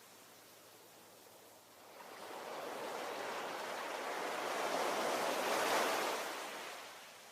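Ocean waves: a quiet lull, then a single wave swells up about two seconds in, breaks with its loudest wash near the end, and recedes.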